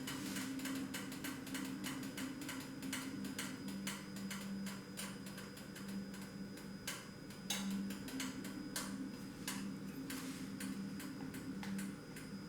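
Pancake batter cooking in an oiled frying pan, with the hot oil giving irregular crackling ticks as the crepe sets. A steady low hum runs underneath.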